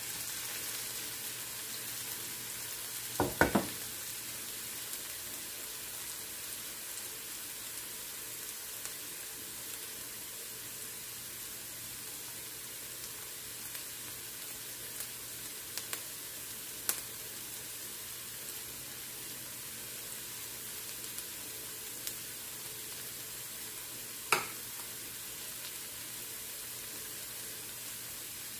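Minced garlic and ginger sizzling steadily in hot oil in a wok, sautéing until slightly brown. A few short knocks break in, the loudest a double knock about three seconds in and a sharp click near the end.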